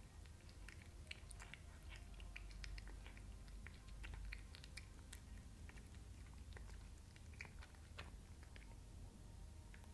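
A tabby cat chewing a piece of raw chicken: faint, irregular clicks and smacks of its jaws, growing sparser near the end.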